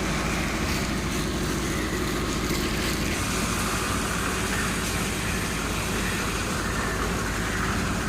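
An engine running steadily with a constant low rumble.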